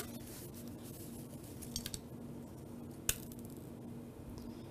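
Quiet room tone with a faint steady hum, and one sharp click about three seconds in as a plastic cup is lifted off a freshly moulded cone of damp sand.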